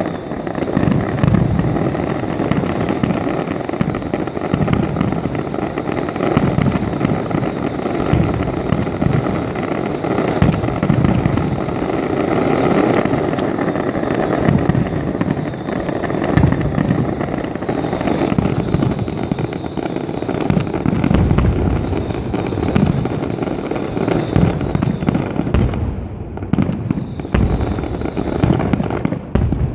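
Fireworks finale: a dense, continuous barrage of shells bursting and crackling, the bangs overlapping one another. The barrage eases briefly near the end.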